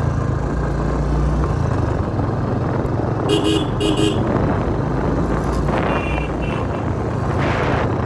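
Royal Enfield Classic 350 single-cylinder engine running on the move, with road and wind noise. About three seconds in, a horn gives two short beeps.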